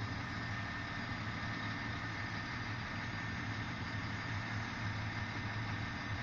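Diesel engine of a standing SŽDC railway maintenance railcar idling: a steady low drone with a thin, constant high whine above it.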